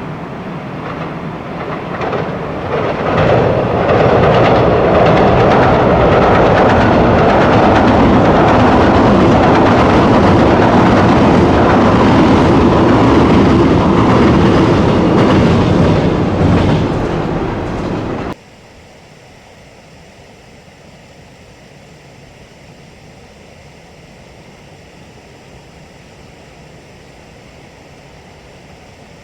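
381 series limited express train passing at speed, building over the first few seconds and running loud for over ten seconds. About 18 seconds in it cuts off abruptly, leaving a much quieter steady rushing noise.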